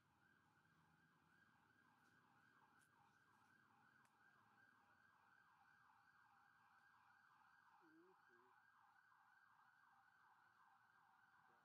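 Near silence: only a faint, steady drone that pulses several times a second.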